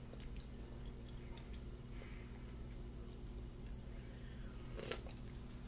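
Soft chewing and mouth sounds of someone eating a pecan ring coffee cake, with scattered faint clicks and one sharper click about five seconds in, over a steady low hum.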